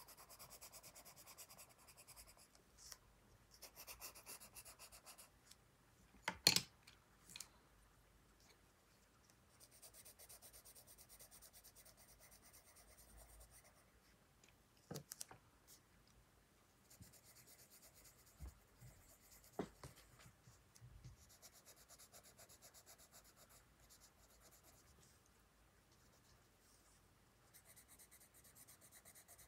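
Coloured pencil shading on sketchbook paper: faint stretches of quick back-and-forth scratching strokes that stop and start. A few light knocks come between them, the loudest about six seconds in.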